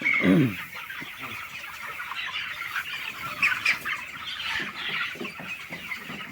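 A large flock of young chickens, about 24 days old, chirping and clucking continuously, with a brief louder, lower call falling in pitch right at the start.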